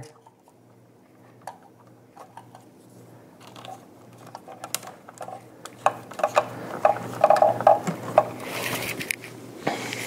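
Hands twisting electrical wires together under a plastic wire nut at a switch box: small clicks, rustles and plastic creaks. It is quiet at first and gets busier about four seconds in, with a few brief squeaks near the end.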